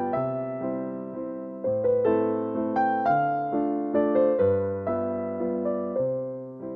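Background music: a slow, gentle electric-piano tune, its notes struck and left to fade, with a new chord about every second.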